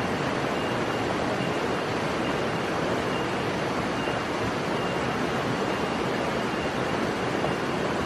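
Steady rushing hiss, even and unchanging, with a faint short high note repeating at regular intervals.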